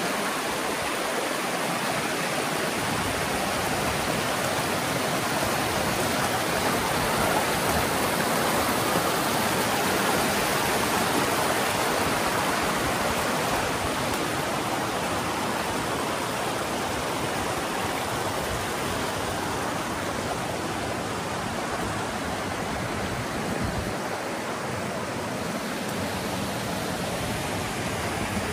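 Steady rush of a fast-flowing mountain river, an even noise without breaks that swells a little about a third of the way in.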